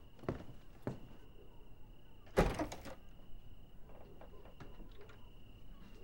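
A few soft steps, then a door thudding shut about two and a half seconds in, with a faint steady high tone underneath.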